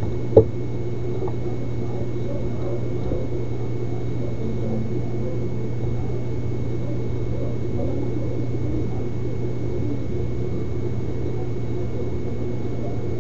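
Steady low hum with faint thin high tones above it, and one sharp click about half a second in.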